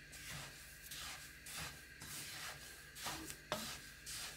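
Wooden spoon stirring sesame seeds dry-roasting in a nonstick pan: a faint, repeated swishing rustle of the seeds with each sweep, and one sharp click a little after three seconds in.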